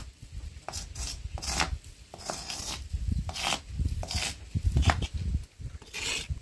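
A small stone scraped against a stone-block wall in short, repeated strokes as letters are scratched into its surface.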